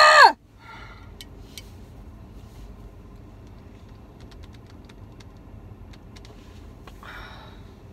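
Faint, scattered clicks and taps of hands straining at the tight lid of a coffee container, over the low rumble of a car's cabin. A high-pitched voiced squeal cuts off right at the start.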